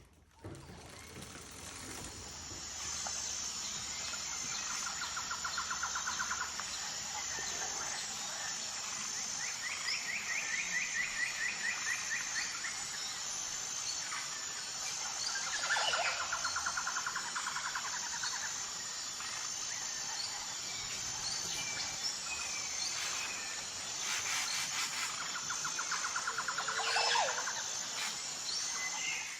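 Birds singing in the open, with a high note repeated about once a second and several short, fast trills, over a steady rushing noise. No freewheel clicking is heard: the Onyx hub's sprag clutch coasts silently.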